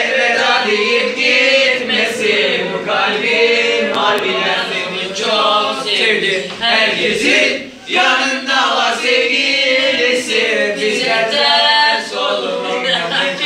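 Teenage boys singing together without any accompaniment, sustained sung notes with only brief breaths between lines.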